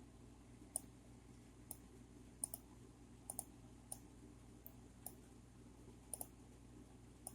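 Computer mouse clicking, about a dozen short, sharp clicks at irregular intervals, some in quick pairs like double-clicks, over a faint low hum.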